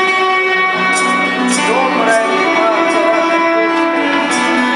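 A many-stringed plucked instrument with two long necks, played by hand: plucked notes ring on over a sustained drone of overlapping tones.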